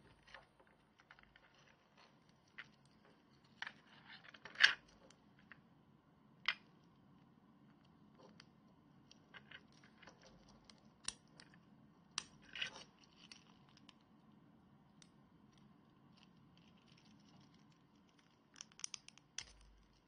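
3D-printed plastic watch clasp and link band handled and worked by hand: scattered faint clicks and rubbing of plastic parts, the sharpest click about five seconds in and a quick run of clicks near the end, over a faint low hum.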